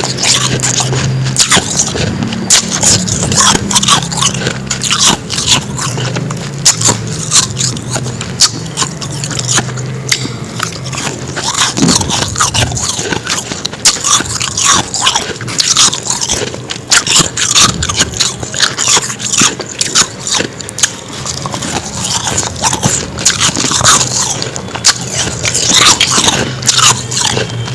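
Close-up crunching and biting of powdery frost ice being chewed, a dense, irregular run of sharp crunches.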